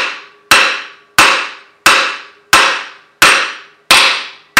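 Light, even sledgehammer blows on a lathe-machined steel puck, driving a cylinder sleeve into a 1947 Ford 8N engine block. There are seven strikes at about three every two seconds, each a sharp metallic clank with a short ring.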